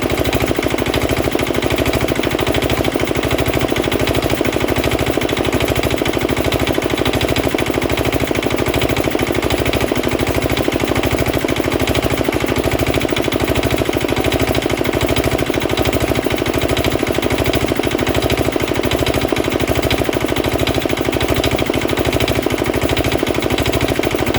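Petter AA1 single-cylinder diesel engine running steadily with an even, thudding beat of firing strokes, driving a belt-driven air compressor.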